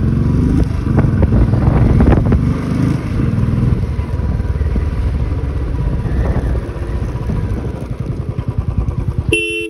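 Motorcycle engine running at road speed as the bike rides along, with wind noise over the microphone. It is loudest in the first few seconds, eases off later, and breaks off briefly near the end.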